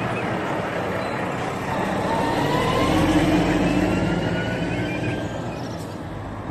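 Heavy Volvo tractor unit hauling a fuel-tanker trailer driving past: diesel engine and tyre noise swell to a peak about three seconds in, with a faint rising whine, then fade as the truck moves on.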